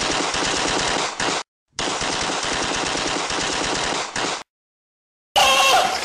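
Sound effect of automatic machine-gun fire: rapid, evenly spaced shots in two long bursts with a short break between them, the second lasting nearly three seconds.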